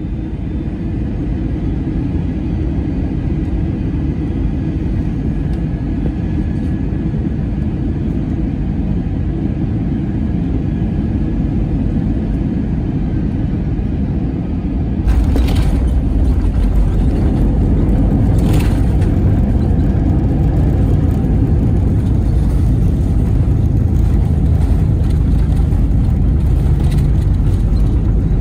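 Airbus A320 cabin noise on a night descent: the steady low rush of the engines and airflow. About halfway through the rumble suddenly gets louder, with two short thuds a few seconds apart.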